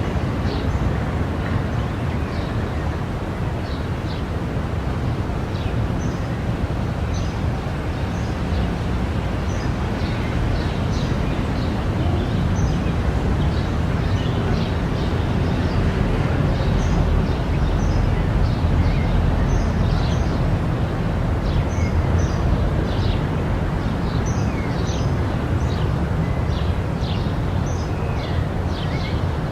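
Urban park ambience: a steady low rumble of city traffic, with small birds chirping in many short, quick calls over it.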